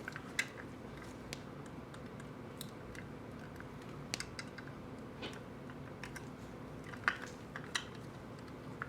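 Scattered light clicks and taps of small metal and plastic toy truck parts being fitted together with pliers, a few sharper clicks about four and seven seconds in, over a steady low hum.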